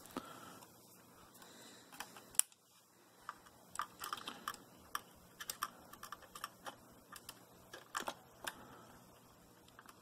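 Scattered light clicks and taps of a SO-DIMM laptop-style memory stick being handled and fitted into its slot on a mini PC's motherboard, with a sharper click about two and a half seconds in.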